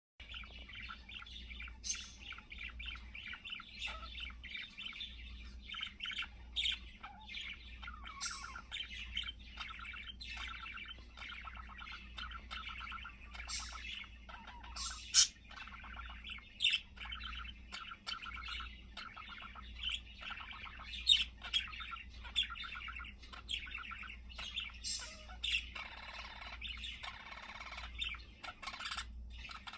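Budgerigar warbling: a continuous chatter of rapid clicks, chirps and scratchy notes, with a few sharp high chirps standing out, the loudest about halfway through.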